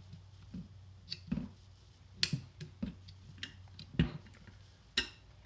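Irregular clicks and knocks of small metal rifle parts being handled as the gas plug is fitted back into the WK180-C's gas block, with the sharpest knock about four seconds in.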